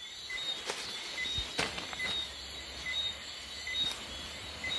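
Night-time chirping of small creatures: short high chirps repeating irregularly about once or twice a second, with a few faint light clicks.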